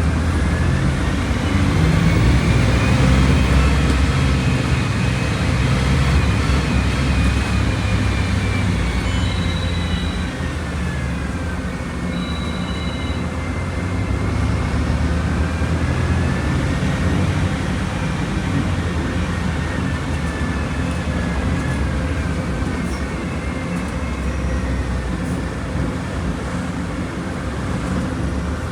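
Volkswagen Volksbus 17.230 Euro 6 bus running, with a steady low engine drone and a whine above it that rises and falls slowly in pitch. Two brief high beeps sound about ten and thirteen seconds in.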